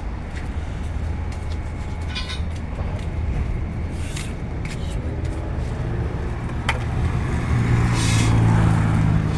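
A motor vehicle's engine hum, growing louder near the end, with a few sharp metallic clicks from work on the car.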